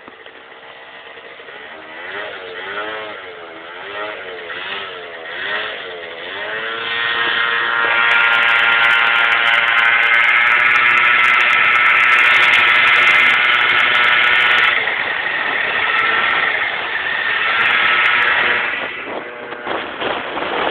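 Small scooter engine pulling away and running at speed. The note wavers at first, then climbs to a loud steady note from about seven seconds in, drops back around fifteen seconds, revs up briefly again and eases off near the end.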